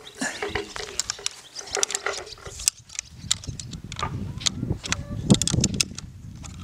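Light metallic clicks and clinks of antenna hardware and fittings being handled at a hexbeam's centre hub. A low rumble comes in about three seconds in.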